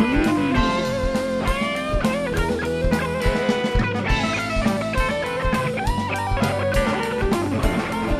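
Live rock band: an electric guitar plays a lead line of sustained, bent notes over a steady drum beat and bass.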